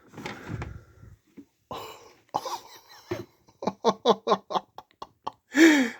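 A person coughing and laughing: breathy bursts at first, then a quick run of short laughs about four seconds in, and a drawn-out vocal sound near the end.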